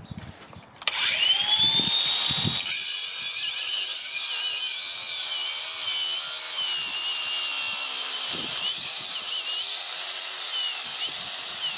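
Diamond grinder spinning up about a second in, its whine rising and settling, then grinding into a tiger's-eye stone: steady grinding noise with a high whine that dips and wavers as the tool is pressed into the stone. A few light knocks come before the grinder starts.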